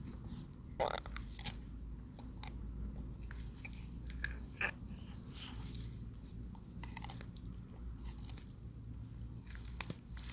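Leopard tortoise biting and chewing its food: irregular crunching snaps, the loudest about a second in.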